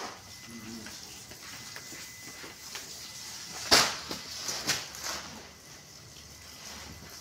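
One sharp knock about halfway through, followed by a few lighter knocks and clatters, over a faint steady hiss.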